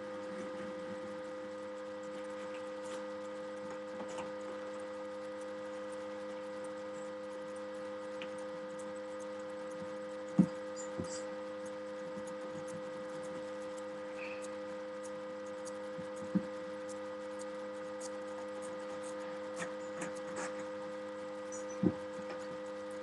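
Steady electrical mains hum in the recording, with four sharp knocks of small objects on a tabletop, the loudest about ten seconds in.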